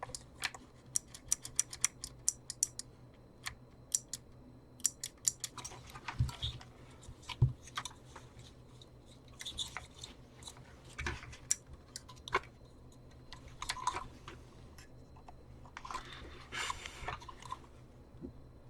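Power switch of a handheld vacuum being flicked on and off over and over, with the relay on its charge circuit clicking in and out each time; the clicks come quickly in the first few seconds, then more sparsely among soft handling rustles.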